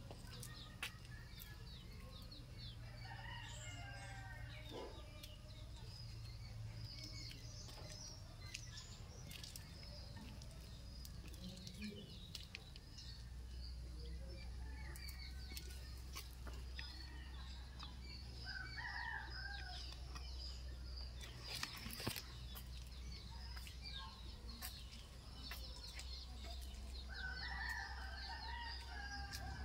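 Faint bird calls and chirps over a steady low hum, with a few light clicks.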